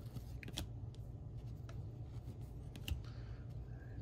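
A stack of 2022 Donruss UFC trading cards being flipped through by hand, the cards sliding and snapping lightly against each other, with the sharpest clicks about half a second in and just under three seconds in. A steady low hum runs underneath.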